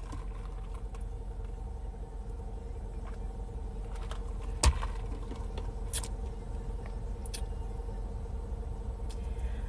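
Quiet background with a steady low hum and a faint steady tone. A sharp click comes about halfway through, then two fainter clicks.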